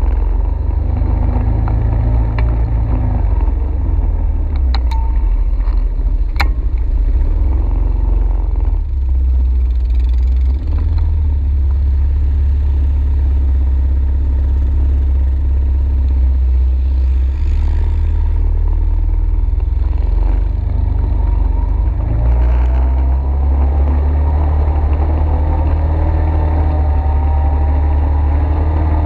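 ATV engine running with a heavy low rumble that shifts in level as the throttle changes. A few sharp clicks come between five and six and a half seconds in, and the engine note climbs steadily over the last several seconds.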